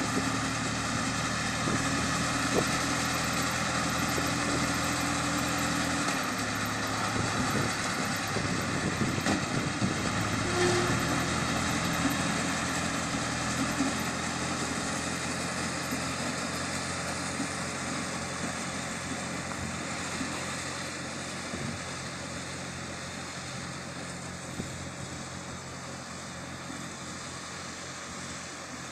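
Compact tractor engine running steadily while towing a working mini round hay baler; the engine note shifts about six seconds in, and the sound slowly fades as the tractor moves away.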